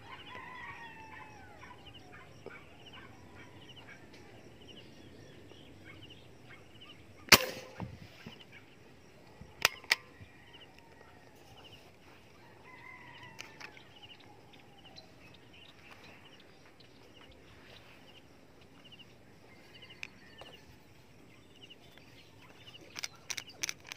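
A single sharp crack from a fishing-rigged rifle firing about seven seconds in, followed two seconds later by two smaller clicks, and a fast run of clicks near the end. Faint chickens call throughout.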